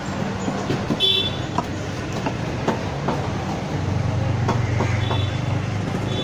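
A knife striking a wooden cutting board as fish fillet is sliced into pieces, a few sharp taps. Underneath runs the low hum of an engine, louder from about four seconds in, with short high toots about a second in and again near the end.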